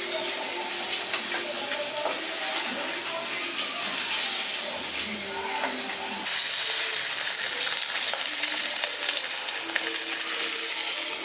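Katla fish steaks sizzling as they shallow-fry in hot vegetable oil in a wok, with crackles of spitting oil and a spatula moving in the pan. The sizzle gets louder about six seconds in.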